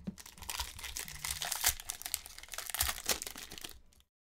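Shiny foil wrapper of a 2021 Topps Inception baseball card pack crinkling and tearing as it is ripped open by hand: a dense run of crackles that cuts off suddenly near the end.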